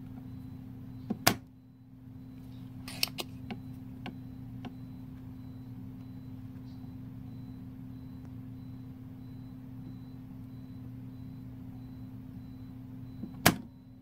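Spring-loaded desoldering pump (solder sucker) firing twice, each release a sharp loud snap, about a second in and again near the end, with a few softer clicks in between. A steady low hum runs underneath.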